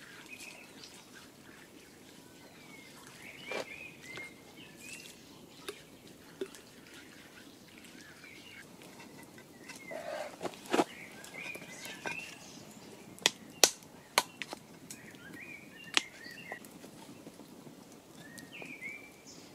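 Songbirds chirping on and off, with a handful of sharp wooden knocks and clicks in the middle as sticks are fed into the campfire and handled.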